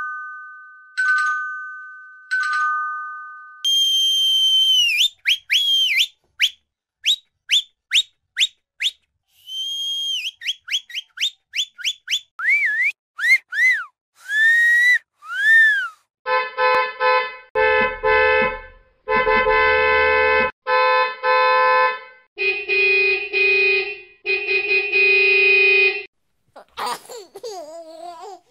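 A run of separate sound effects: a two-note ding-dong chime sounding three times, then whistles, first a long one, then a quick series of short blips, then rising-and-falling whistles. After that come groups of buzzy, pitched pulses, and a short gliding tone near the end.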